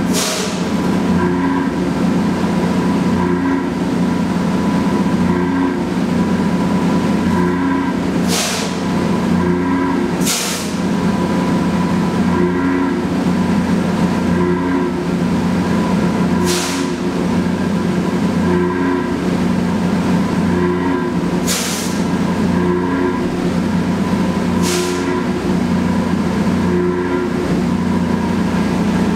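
Loram rail grinder LRG-32 grinding the rails: a loud, steady mechanical drone from the machine's engines and grinding units, broken several times by short bursts of hiss.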